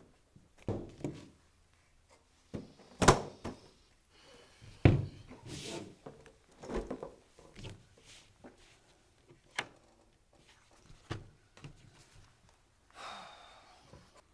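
Several separate thuds and knocks at a table as a person sits down and handles a folder and papers, then a sheaf of papers rustling near the end.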